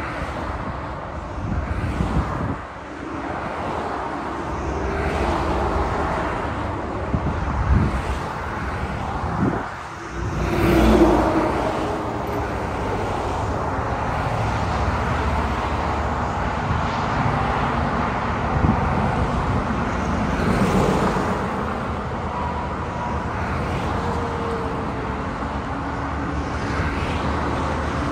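Highway traffic passing close by: a steady stream of cars and trucks, the tyre and engine noise swelling and fading as each vehicle goes past. The loudest pass comes about eleven seconds in.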